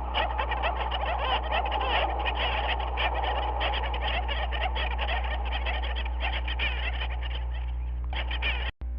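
Dense chorus of many birds calling over one another, with many short overlapping calls and a steady low hum underneath. The sound cuts out for a moment near the end, then resumes.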